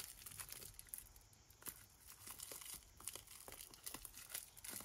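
Faint crinkling of a small clear plastic bag turned and squeezed in the fingers, with scattered light clicks as the small magnets inside shift.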